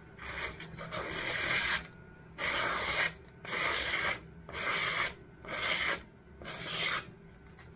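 Kitchen knife blade slicing through a sheet of printed catalogue paper in about six strokes, each a short hissing slice under a second long. This is a paper-slicing test of the knife's freshly sharpened edge.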